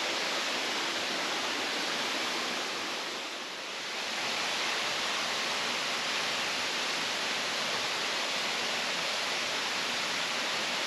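Steady rush of falling water from a nearby waterfall, dipping briefly about three and a half seconds in.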